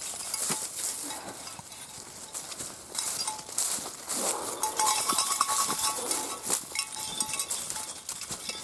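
Footsteps crunching on a trail with the light metallic jingling of dogs' collar tags, busiest through the middle stretch.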